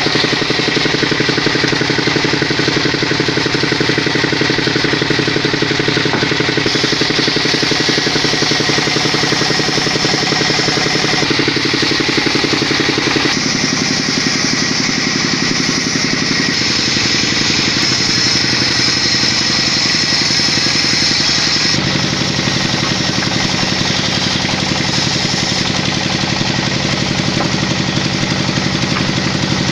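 A vehicle engine running steadily, its pitch shifting in steps several times from the middle on, as with changes in engine speed or gear.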